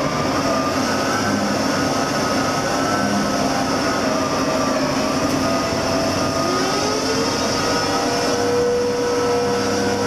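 Winch and deck machinery on a research ship lowering an ocean bottom seismometer on its wire: a steady mechanical drone with whining tones that slide in pitch, one rising about six and a half seconds in and then holding steady.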